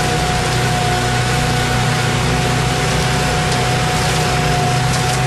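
Engines of concrete paving equipment running steadily: a concrete mixer truck and a bridge deck finisher with its air-cooled Kohler gasoline engines, a constant drone with a steady high whine over it.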